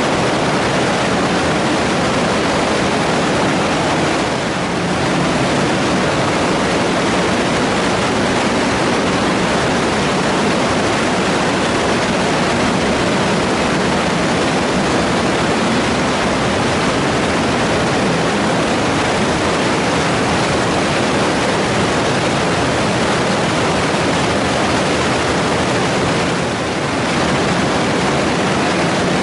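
Storm runoff rushing fast through the tiled channel of a concrete storm-sewer diversion chamber during a thunderstorm: a loud, steady rush of water, easing slightly twice.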